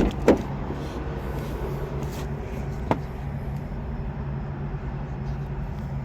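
A steady low mechanical hum, with a sharp loud knock about a third of a second in and a smaller click about three seconds in.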